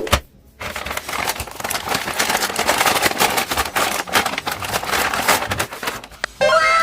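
Plastic packaging crinkling and clicking as a toy is unboxed, irregular and continuous. Near the end a series of falling electronic tones starts, like a toy gun's sound effect.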